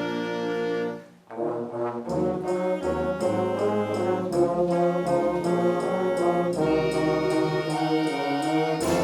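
High school band with brass to the fore, trombones and trumpets, playing an upbeat holiday tune. A held chord cuts off about a second in, and after a short gap the band comes back in with shorter, separate notes.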